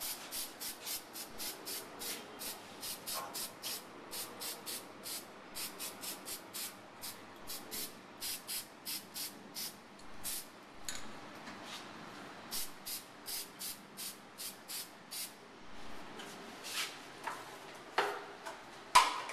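Aerosol can of fluorescent spray paint sprayed in rapid short bursts, about three a second, with a pause about ten seconds in before a second run of bursts. A sharp knock comes near the end.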